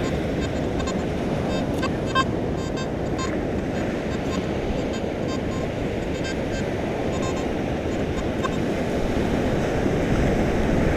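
Steady surf and wind noise, with short, irregular beeps from a Nokta Makro Simplex metal detector's speaker. The beeps are false-signal chatter that points to no real target.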